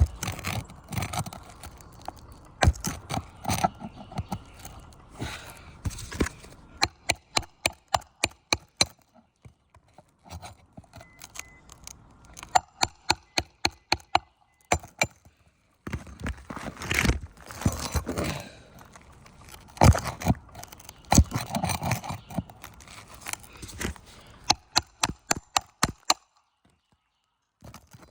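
A metal shingle-removal bar is worked under brittle asphalt shingles to free high-set nails. It makes runs of quick, sharp taps and clicks, with scraping and cracking between them. It falls quiet briefly near the end.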